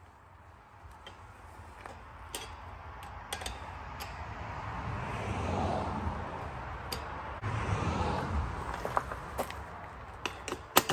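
Wrench working a threaded fitting onto an air compressor's outlet manifold: rustling handling noise from the worker's coverall, with scattered light metal clicks and two sharp clicks near the end.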